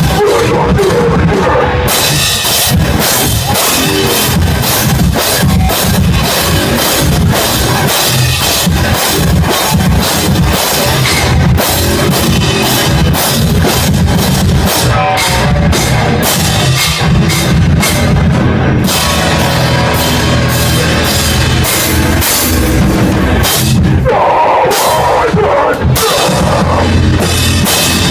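Hardcore/deathcore band playing live at full volume: distorted electric guitar and bass over a drum kit with bass drum and cymbals. Near the end the low end and drums drop out for about three seconds, then come back in.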